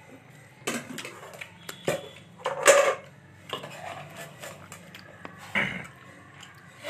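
Clinks and scrapes of a plate and utensils during a meal of rice and meat, a few separate clatters with the loudest about three seconds in.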